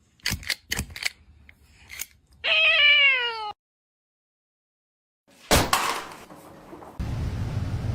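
A few sharp knocks, then a cat meowing once, a cry of about a second that falls in pitch. After a silent gap comes a sudden loud noisy burst, and near the end a steady low background noise.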